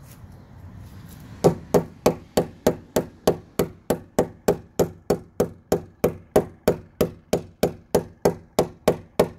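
Claw hammer tapping a wall anchor into a drilled hole in a brick wall: a steady run of sharp strikes, about three a second, starting about a second and a half in.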